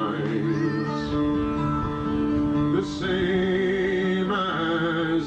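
Live folk song: a man singing held notes with vibrato over acoustic string accompaniment.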